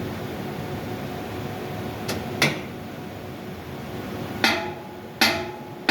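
A hammer knocking on metal parts during a blower installation: about five sharp, irregularly spaced strikes, each ringing briefly, over a steady background noise.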